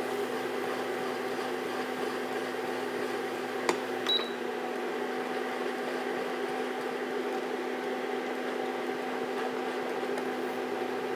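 Caramel sauce of sugar, cream and butter bubbling in a saucepan as a wooden spoon stirs it, over the steady hum of a portable induction cooktop; a single sharp click about three and a half seconds in.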